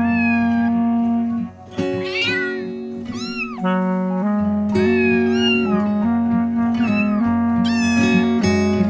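A cat meowing again and again over background music with long held notes.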